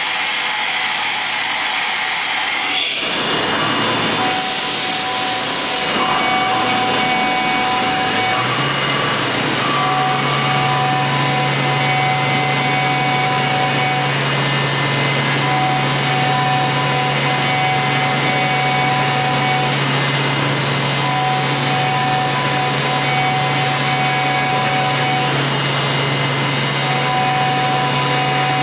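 Deckel Maho DMC 635V CNC machining centre milling metal under flood coolant: the high-speed spindle and cutter run steadily while coolant sprays inside the enclosure. About 3 seconds in the sound shifts with a falling tone and a brief hiss, and a low steady hum joins a few seconds later.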